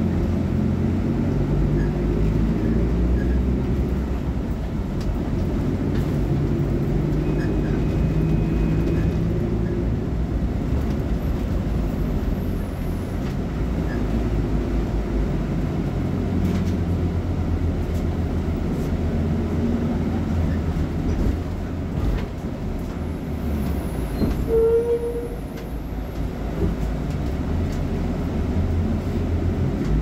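Volksbus 17.230 OD bus's diesel engine idling steadily with a low rumble. A brief high-pitched note sounds once, about three-quarters of the way through.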